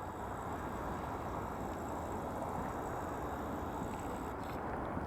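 Steady, even outdoor background rumble with no distinct events.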